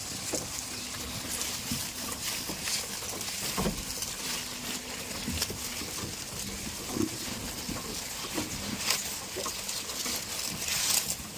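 Goats close by: scattered clicks and rustles over a steady hiss, with faint low held sounds from the animals.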